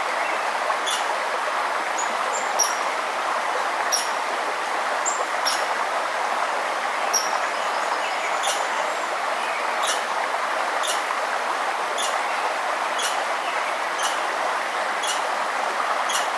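Steady rush of flowing stream water, with a bird giving short, sharp high chip notes about once a second and a few brief high whistled notes.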